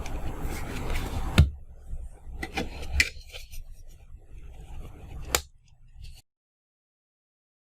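Paper card being handled and folded: rustling with a few sharp taps and clicks, the loudest about one and a half seconds in. The sound cuts out completely about six seconds in.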